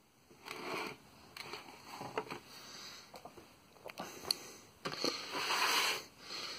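Several short sniffs close to the microphone, the longest about five to six seconds in, with scattered light clicks from hands handling the plastic bit case.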